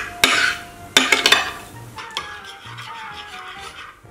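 Metal spoon stirring glitter into glue slime in a glass bowl, scraping against the glass twice in the first second and a half and then more quietly, over background music.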